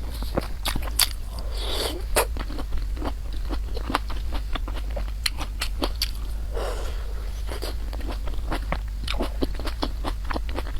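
Close-miked chewing and mouth sounds of a person eating, with many quick, irregular wet clicks and a few short smacking smears.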